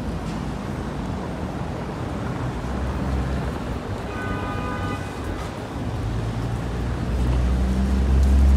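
City street traffic noise, with a city bus's engine rumble growing louder as it passes near the end. A brief high whine lasts under a second about four seconds in.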